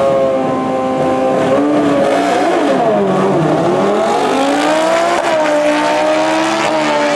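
Two sport motorcycles launching on a drag strip: a loud, even engine note held high at first, dipping sharply in pitch about two and a half seconds in, then climbing again as the bikes pull away down the strip.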